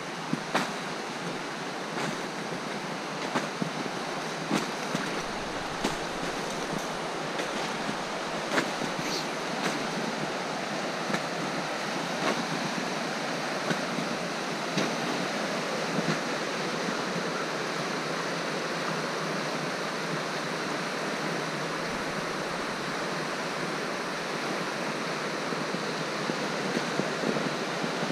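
River rapids rushing steadily over rocks. Through the first half, footsteps crunch in snow about once every second and a bit, then stop, leaving the steady rush of the water.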